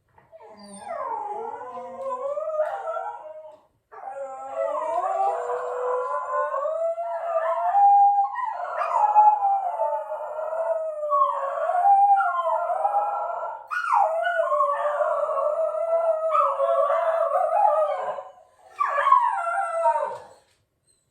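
Shetland sheepdog howling in long, wavering phrases, with short breaks about four seconds in and near the end.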